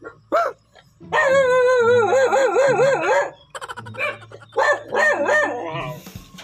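Dog barking and howling: a short yelp, then a long howl that warbles up and down several times a second, then a run of shorter yelps and howls.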